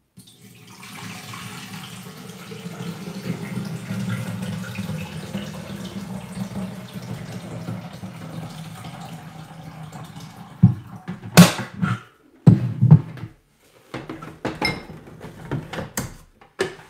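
Water pouring steadily from a filter jug into the translucent plastic water tank of a DeLonghi Specialista Arte espresso machine for about ten seconds. Then several sharp knocks and clunks follow as the jug is set down and the tank is handled and fitted back into the machine.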